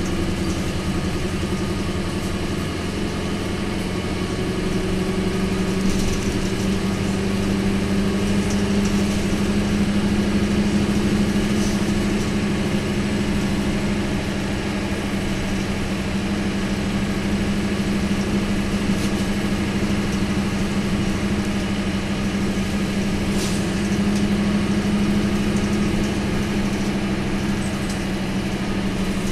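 Isuzu Cubic bus's V8 diesel engine running steadily with an even low drone, heard from inside the bus.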